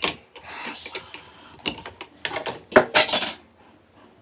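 Makeup containers and tools being handled on a tabletop: a run of sharp clicks and clatter from small hard cases being set down and picked up, loudest in a quick cluster about three seconds in.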